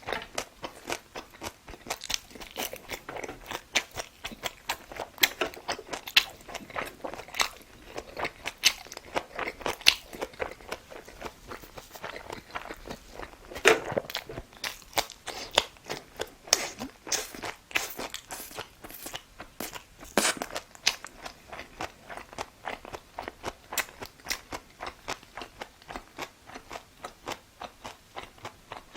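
A person chewing and biting food, with a steady run of crisp crunches a few times a second.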